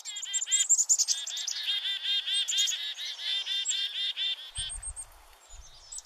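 Black-capped chickadee alarm calling: a high chick-a-dee call with a long, rapid run of repeated dee notes, about eight a second, stopping a little under five seconds in, followed by fainter calls. This is the scolding call chickadees give on spotting a predator.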